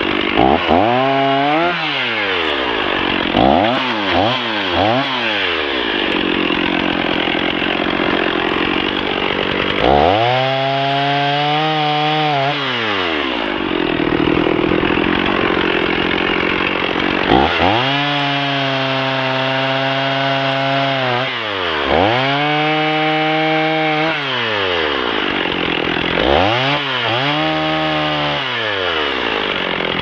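Stihl 460 Magnum two-stroke chainsaw sawing into the trunk of a hung-up tree. The throttle is opened and let off again and again: three quick blips about four seconds in, then several longer full-throttle cuts of two to four seconds each, with the engine dropping back toward idle in between.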